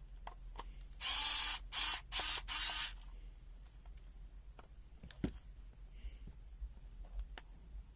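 Small clicks and handling noise from unscrewing and opening a multimeter's plastic back case. About a second in comes a loud hissy noise lasting about two seconds and broken into four short pieces, then scattered light clicks, one sharper knock about five seconds in.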